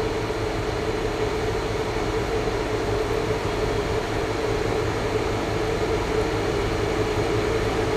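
Steady machine hum with a constant drone, unchanging throughout.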